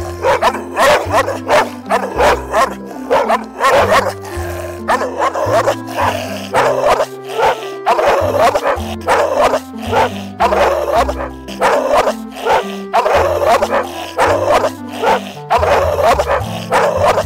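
Large white bulldog-type dog barking over and over, about two barks a second, over background music with a steady bass line.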